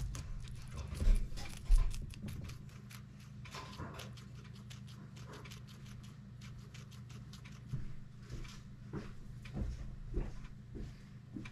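Guinea pigs chewing a celery stalk: quick crisp crunching clicks in the first couple of seconds, then only scattered clicks. Two dull thumps about one and two seconds in are the loudest sounds, over a steady low hum.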